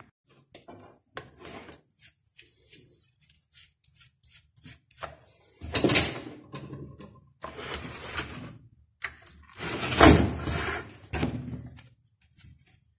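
Hand work on a small brushcutter engine: many short clicks and clatters of tools and metal parts being handled, with three louder, rough noisy stretches of about a second each, around six, eight and ten seconds in.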